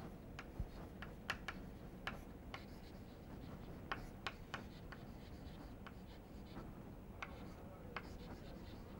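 Faint writing sounds: a dozen or so short, irregular scratches and ticks of a writing implement.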